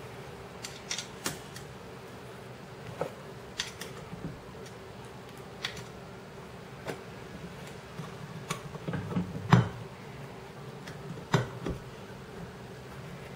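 Hands fitting a replacement motor and its mounting screws into a metal shade actuator tube: scattered light metallic clicks and taps, two of them sharper in the second half, over a steady low hum.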